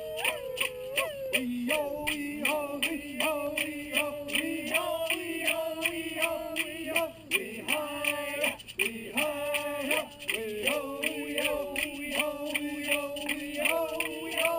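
A single voice sings a Chumash song in chanted syllables, holding some notes and sliding between others. A sharp percussive beat keeps time at about two strikes a second.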